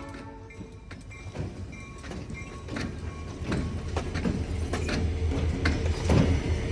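Freight train approaching, with a low diesel locomotive rumble and the clack of wheels over rail joints growing louder.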